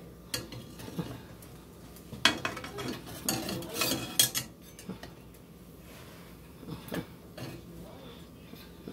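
Metal spatula scraping and clinking against a nonstick frying pan as it works around and under a quesadilla. A few single knocks at first, a busy run of scrapes and clinks in the middle, then two more knocks near the end.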